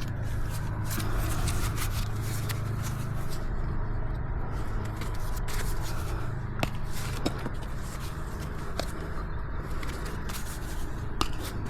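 Hoof nippers working on a miniature horse's hoof: scraping and shuffling with a few sharp, scattered clicks, over a steady low hum.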